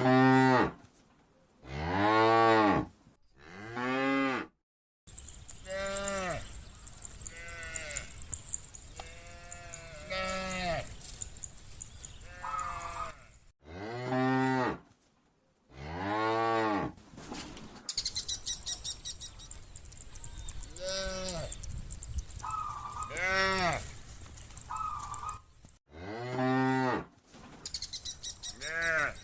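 Domestic cattle mooing: a dozen or more long moos from several cows, one after another, each rising and falling in pitch, with abrupt cuts between some of them. A faint steady high whine with rapid ticking lies behind the calls in the middle and later part.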